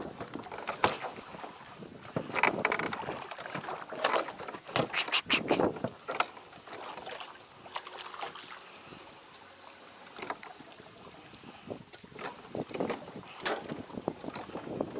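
Irregular splashes and knocks at the water's surface from a hooked black bass thrashing beside a small boat while it is played on light spinning tackle and drawn in by hand, with gear bumping the hull.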